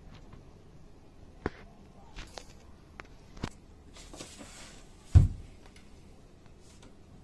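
An African bullfrog gulping down a whole chick in a plastic tub: a handful of faint clicks and taps, a short soft rustle, and one loud, dull thump about five seconds in.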